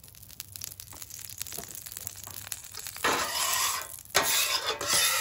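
Oil squirted onto a hot steel flat-top griddle crackles faintly, then a bench scraper is pushed across the griddle top in two long scraping strokes starting about three seconds in.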